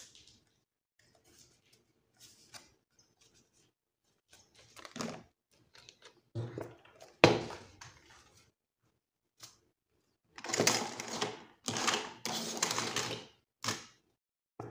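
Paper craft pieces being handled and pressed down during gluing: intermittent rustling and scraping with a sharp click about seven seconds in, and a longer run of louder rustling and rubbing near the end.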